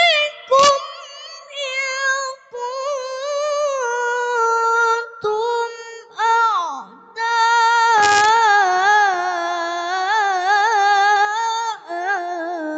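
A young boy reciting the Quran in melodic tilawah style, drawing out long ornamented notes with a wavering pitch, broken by a few short pauses.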